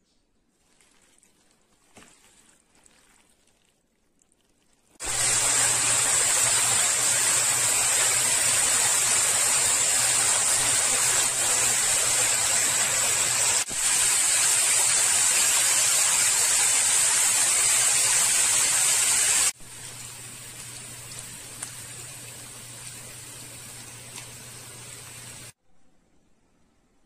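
Marinated beef tapa sizzling in a frying pan: a loud, steady hiss that starts abruptly about five seconds in, with a low hum underneath, then drops to a quieter sizzle and cuts off shortly before the end.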